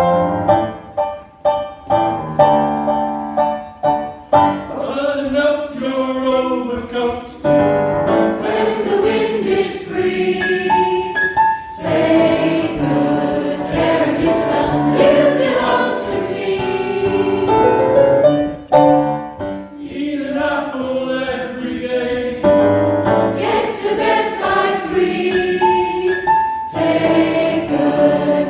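Choir singing a Christmas song about sleigh bells, voices in several parts moving from phrase to phrase.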